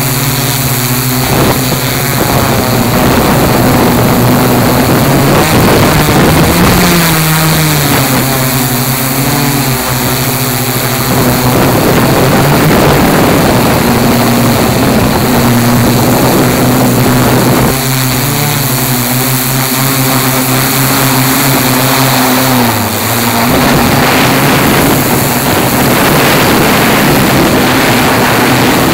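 Tarot 680Pro hexacopter's six electric motors and propellers humming, heard from the camera on board, over a steady rushing hiss. The pitch of the hum rises about seven seconds in and falls again around twenty-three seconds in as the motor speed changes.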